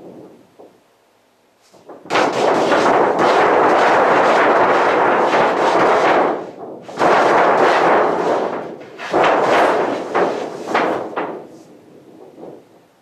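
Large sheet of stiff paper crackling and rattling loudly as a cat paws and scratches at it. The noise comes in several long bursts, starting about two seconds in.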